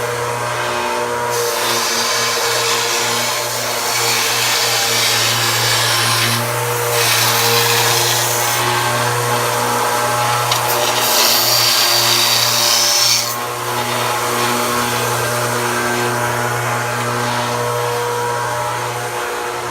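An electric power tool's motor running steadily, with a long stretch of loud, hissy rubbing as metal is cut or abraded, strongest shortly before it eases off about two-thirds of the way through.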